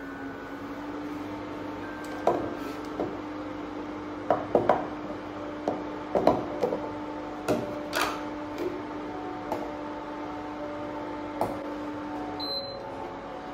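Scattered clicks, taps and knocks of a plastic formula container, its lid and scoop, and a baby bottle being handled on a glass-topped counter while powdered infant formula is measured out. A steady low hum runs underneath.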